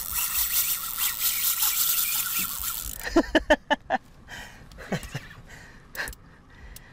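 Spinning reel ratcheting with fast, dense clicking while a hooked fish pulls on the line. About three seconds in it gives way to a quick run of five or six short, loud squeaks, followed by a few scattered clicks.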